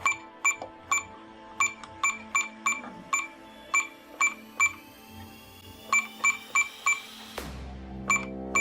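Short, sharp electronic beeps from a digital wall clock's keys being pressed over and over during time setting, irregularly spaced and sometimes in quick runs. Background music with steady held tones runs underneath, with a falling sweep near the end.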